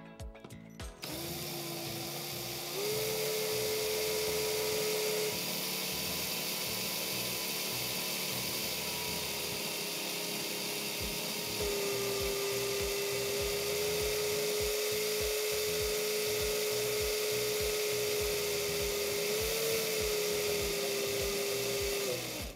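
Cordless drill running steadily as it spins a glass rod in a bowl of slime, its motor whine shifting in pitch a few times as the speed changes. It stops just before the end.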